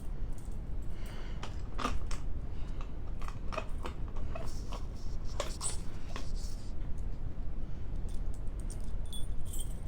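Keys and small hard objects being handled: scattered clicks and light rattles over a low steady hum.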